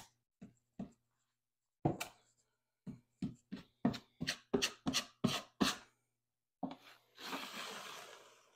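Wide drywall taping knife dragging wet joint compound across the wall in short scraping strokes, about three a second, while it feathers out a patch; near the end comes one longer, smoother scrape.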